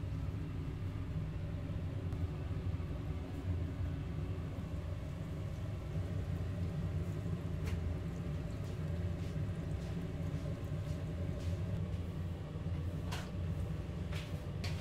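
A machine running with a steady low hum that starts abruptly, with a few light clicks over it.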